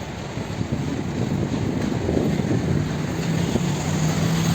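Outdoor traffic noise with wind on the microphone; a steady low engine hum comes in about halfway through and grows louder.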